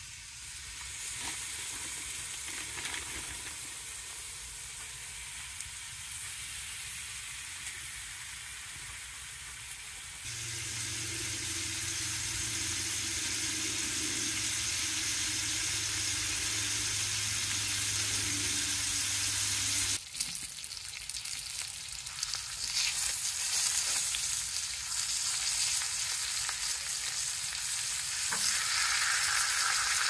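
Steaks frying in a pan on a wood stove, a steady sizzle. It changes abruptly twice, about a third and two-thirds of the way through, and grows louder in the last part; a low hum sits under the middle stretch.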